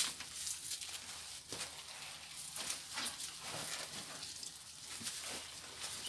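Wine grapes in a flour sack being trodden underfoot: irregular soft wet squelches and crackles as the grape juice is pressed out.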